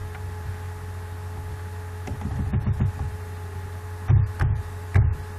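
Computer keyboard keystrokes and mouse clicks picked up by the microphone: a few light taps, then four stronger knocks in the last second and a half, over a steady electrical hum.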